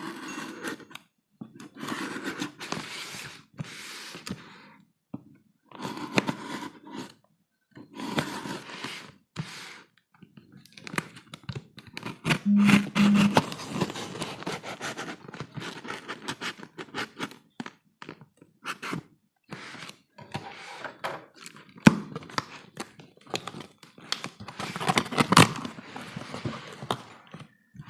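Action figure packaging being handled and opened: short bursts of scraping and rustling, then a long stretch of rapid clicks and light knocks, with one sharp click a little past the middle.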